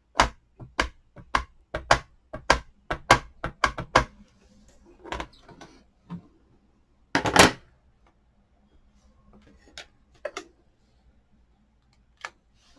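An ink pad is tapped again and again onto a photopolymer stamp, about a dozen quick plastic taps. Then comes one louder clack, about halfway through, as the stamping platform's hinged plate closes, followed by a few softer knocks.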